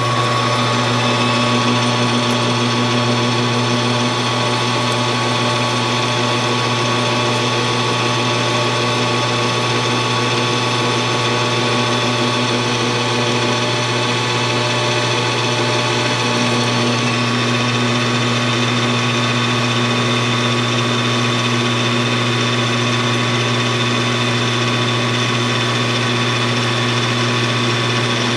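Metal lathe running steadily at speed, its spindle and drive giving an even whine with several constant tones while the tool turns down a small steel lifter blank and curls off chips.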